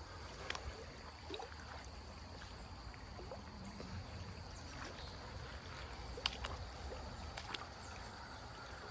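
Faint creek water running steadily, with a few short clicks scattered through it and a faint steady high-pitched tone underneath.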